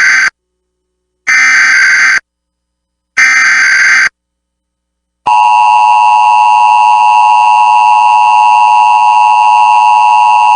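Emergency Alert System test signal: the tail of one burst and then two more of the SAME digital header, each about a second long with a second of silence between. About five seconds in, the steady two-tone EAS attention signal starts and holds unbroken.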